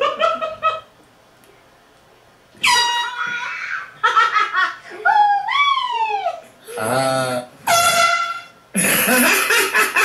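Short, loud air horn blasts, a steady blaring tone about three seconds in and again about eight seconds in, then a longer, louder blast near the end, mixed with laughter and voices.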